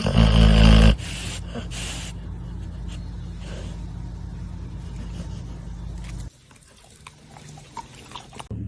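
A dog vocalising loudly for about a second, then a steady low hum that cuts off suddenly about six seconds in.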